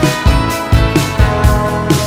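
Background music: an upbeat instrumental track with guitar and a steady drum beat.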